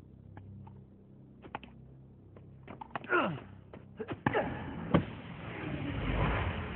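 Tennis rally: sharp taps and hits of racket strings on the ball, with a falling swish of a swing about three seconds in. The loudest hit comes about five seconds in, followed by a swelling whoosh of rushing air as the ball flies.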